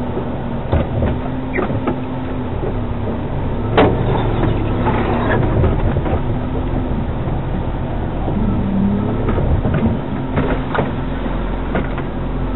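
Off-road vehicle's engine running at low revs while crawling over a rough forest trail, heard from inside the cab, with clicks, rattles and knocks from the body and suspension over bumps; the loudest is a sharp knock a little under four seconds in.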